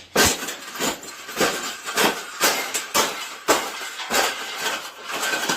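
Irregular knocking and clattering, about ten sharp hits with rattling between them, as a cage is bent and folded flat.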